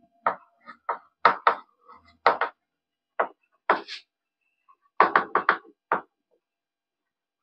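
Chalk writing on a chalkboard: a series of short taps and scrapes as the letters are stroked out, with a quick run of them about five seconds in, then stopping about a second before the end.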